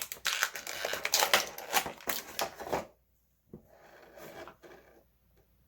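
Handling of a plastic action figure's championship-belt accessory and its packaging: a quick run of clicks and rustles for about three seconds, then fainter handling noise after a short pause.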